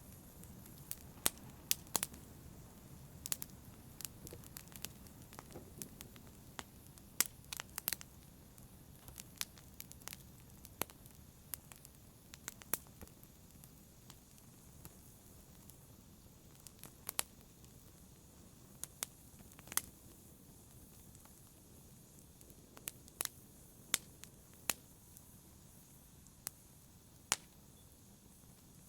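Wood fire burning in a fireplace: a soft low rush of flames with sharp, irregular pops and crackles of burning wood, several a second at times and a few seconds apart at others.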